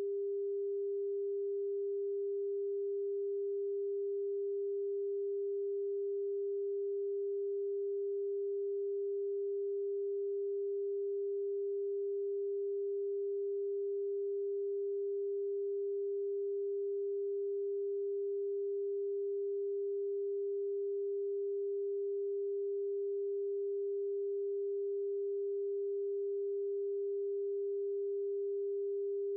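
A single pure electronic test tone at about 400 Hz, held perfectly steady with no change in pitch or loudness.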